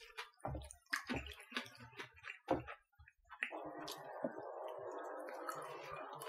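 Quiet eating sounds: light clicks and taps of wooden chopsticks working udon in a silicone steamer and against a small dish. About halfway through, a steady faint hum sets in and continues.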